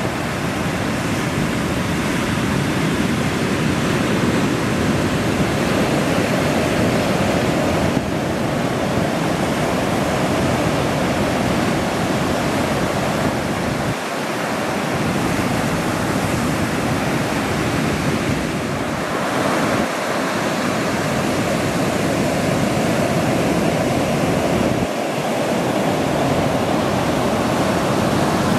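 Ocean surf at a beach break: waves breaking and washing ashore in a steady rush of noise, shifting abruptly a few times.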